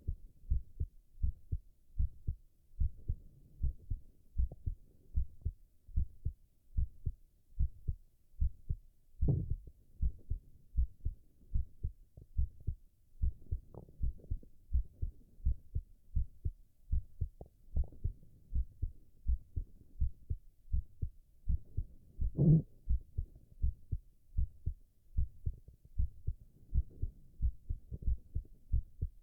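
A man's heartbeat heard close through the chest: a steady rhythm of low, dull thumps. Two brief louder sounds break in, about nine and twenty-two seconds in, the second with a short growling tone.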